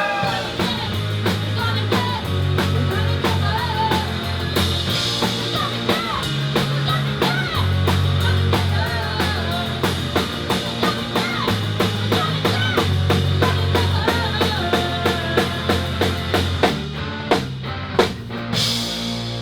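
Live band playing an instrumental passage: a drum kit keeping a steady beat under a bass line and gliding lead lines, with cymbal crashes about five seconds in and near the end.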